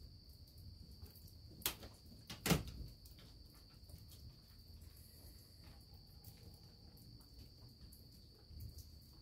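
Crickets chirping in a steady high trill. Two sharp knocks cut across it about two seconds in, the second one louder.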